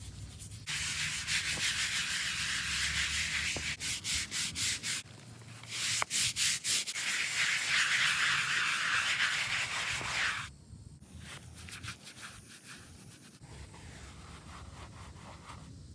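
A brush scrubbing a gravestone's stone surface in quick back-and-forth strokes. The rubbing becomes much quieter about ten seconds in.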